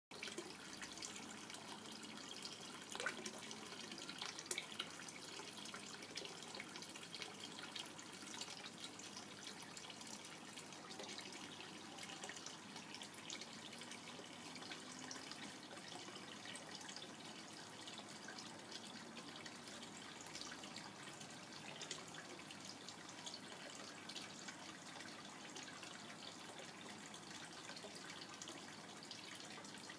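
Pond water trickling and dripping: a steady, fairly faint splashing with many small scattered drips.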